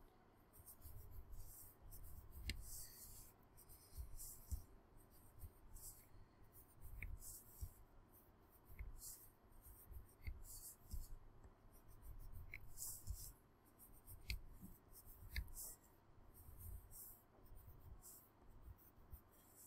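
Wax crayon scribbling zigzag lines on paper: faint, repeated scratchy strokes in an uneven rhythm, with soft knocks as the sheet is turned on the table.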